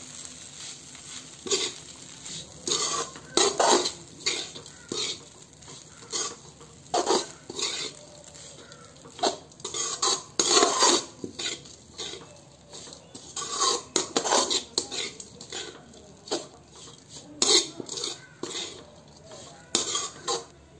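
Metal spatula scraping and clinking against a metal kadhai in irregular strokes as poha (flattened rice) is stirred and mixed.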